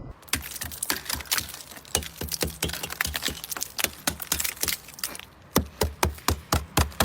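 Ice on a car cracking and crunching as it is broken off, in dense, irregular cracks; from about five and a half seconds in, a steady run of sharp knocks, about four a second.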